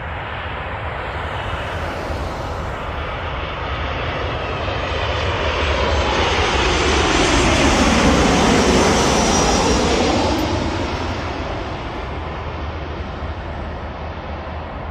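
Jet airliner on final approach for landing, passing low overhead: its engine noise grows to a peak about eight seconds in, with a whooshing sweep as it goes by, then fades.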